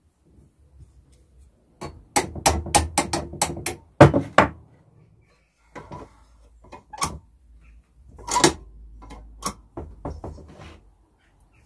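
Hammer tapping on steel while the stand is fitted back onto a vintage Tri-ang child's scooter frame. There is a quick run of sharp metallic taps, then one harder blow about four seconds in, then a few scattered taps.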